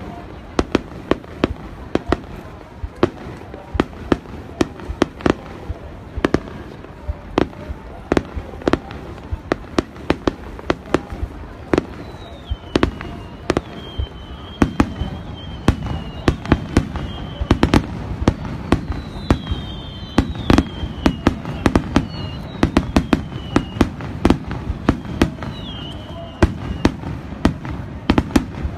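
Aerial fireworks bursting in a rapid, continuous run of sharp bangs and crackles, coming thicker and louder in the second half. High, wavering, falling whistles join from about twelve seconds in.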